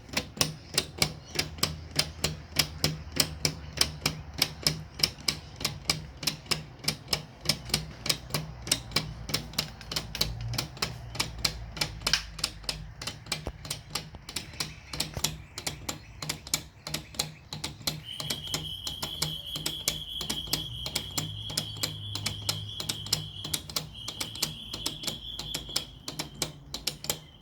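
Oversized 3D-printed PLA watch escapement ticking: the pallet fork and escape wheel snap out sharp, even plastic clicks, about three or four a second. A steady high whine joins in about eighteen seconds in.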